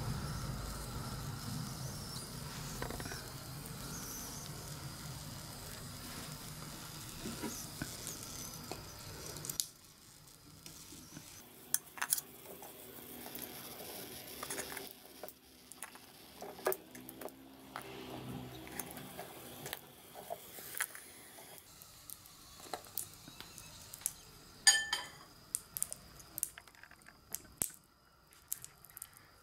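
Long metal tongs clicking against a wire grill over a charcoal hibachi and roasted chestnuts being set down in a ceramic dish: scattered light clicks and taps, with one sharp clack near the end. A steady low rushing noise runs for about the first ten seconds, then cuts off.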